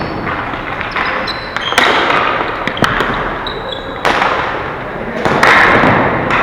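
Ball hockey play: repeated sharp clacks and thuds of the ball striking sticks and the boards, with players' voices shouting through it.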